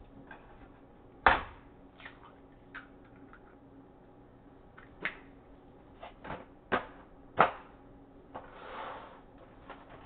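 A series of sharp household knocks and clacks, irregularly spaced, the loudest about a second in and again about seven seconds in, followed near the end by a brief rustling or scraping sound.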